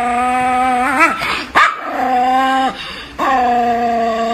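Small white chihuahua screaming in long, steady, held howls: three in a row, each lasting a second or more, broken by short sharp yelps.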